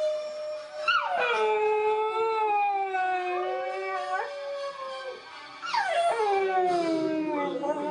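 Dachshund howling along with a played-back recording of its own howl, the two howls overlapping. New howls begin about a second in and again near six seconds, each sliding down from a high start into a long held note.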